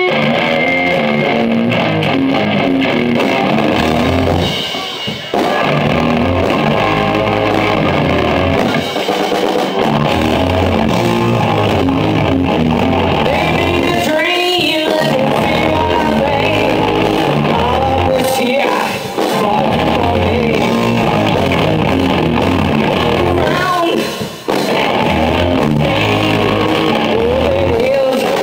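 Rock band playing live through a PA: electric guitars and drum kit, the music dropping back briefly a few times.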